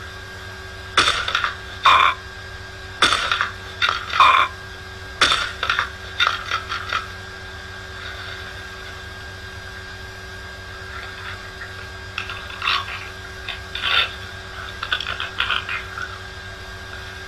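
An animal calling in short, repeated pitched bursts, in several groups with a pause of a few seconds in the middle, over a faint steady hum.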